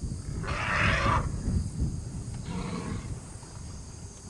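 African elephant trumpeting: one loud blast about half a second in, lasting under a second, then a fainter, shorter call about two and a half seconds in.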